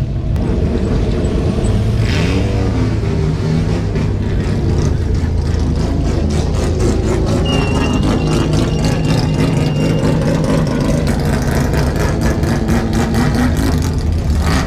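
Classic racing car engines running loudly and revving, with a rapid pulsing exhaust note that quickens near the end.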